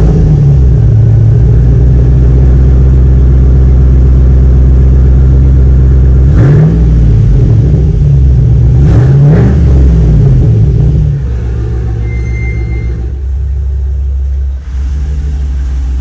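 Chevrolet Silverado pickup's engine just after a cold start, running loud and steady with two brief revs rising and falling, about six and nine seconds in. About eleven seconds in it settles noticeably quieter.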